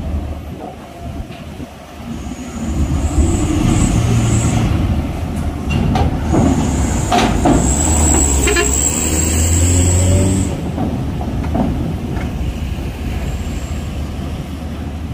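Diesel truck engine running as a loaded truck drives past close by, getting louder a couple of seconds in and easing off near the end, with a thin high hiss over it. A few clanks come as its wheels cross the steel ramp plates.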